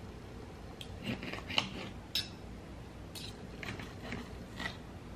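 Knife and fork cutting a thin-cut ribeye steak on a plate: scattered light clicks and scrapes as the blade and tines touch the plate, the sharpest about two seconds in.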